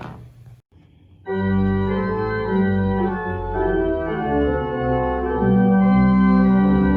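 An organ starts playing about a second in, holding full, sustained chords that change every second or so.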